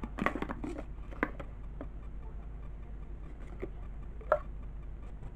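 Plastic water bottle being handled and its lid worked: scattered light clicks and knocks of hard plastic, several in the first second and the sharpest about four seconds in.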